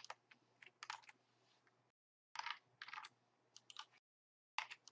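Faint computer keyboard typing and clicking: quick, irregular keystrokes in three short flurries.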